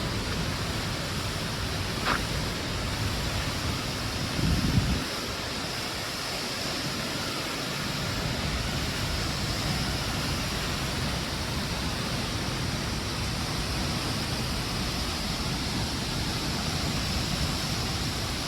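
A large waterfall in full flow after the rainy season, a steady rushing wash of falling water. A brief low thump about four and a half seconds in.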